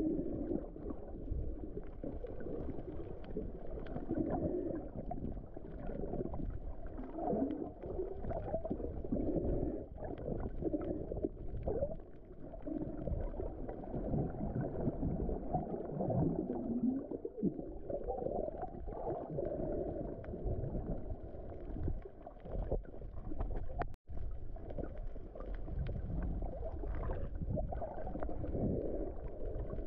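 Muffled underwater sound picked up by a camera in its waterproof housing: a low rumble with shifting gurgling of moving water and no clear high sounds. The sound drops out for an instant about 24 seconds in.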